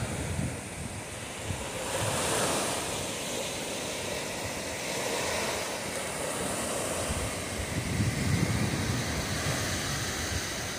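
Sea waves breaking and washing up on the beach, the surf swelling every few seconds, with some wind on the microphone.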